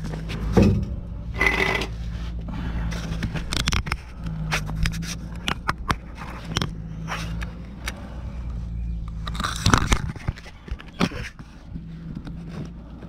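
Irregular metal scraping, clicks and knocks as a pickup's loosened old muffler and exhaust pipe are worked free underneath the truck.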